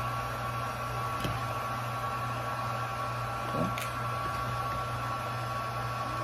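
Small electric heat gun running steadily, a low hum with a faint high whine, used to soften the toy's plastic so parts can be worked loose. A couple of light clicks from plastic parts being handled.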